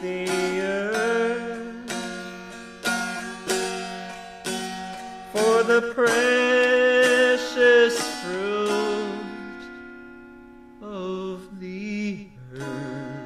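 Music: plucked-string accompaniment with a voice singing long, wavering held notes. The voice is loudest a little past the middle, then fades before the strings pick up again near the end.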